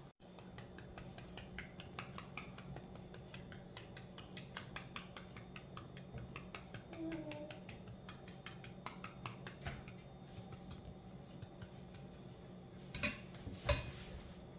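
Salt being shaken over peeled green plantains: a long run of quick, light ticks, several a second, with two sharper knocks near the end.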